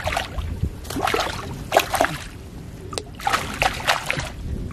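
A hooked fish splashing at the water's surface close to the bank, in several short bursts of splashing.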